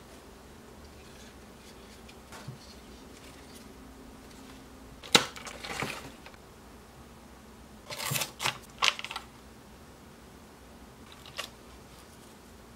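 Clear plastic clamshell packaging being handled and opened, giving a few sharp plastic clicks and crinkles: the loudest snap about five seconds in, a cluster of clicks around eight to nine seconds, and a small tick near the end.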